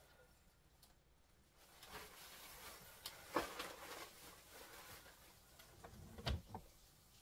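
Paper and a plastic bag crinkling and rustling in someone's hands, with a few sharp clicks. A single dull thump comes about six seconds in.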